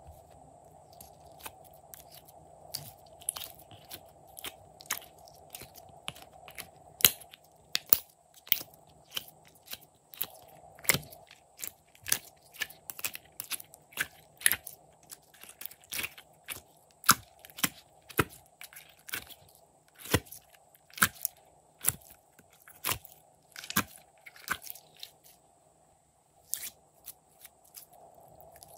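Glossy slime being squeezed out of silicone molds and kneaded by hand, giving many short sticky pops and clicks, irregular, about one or two a second.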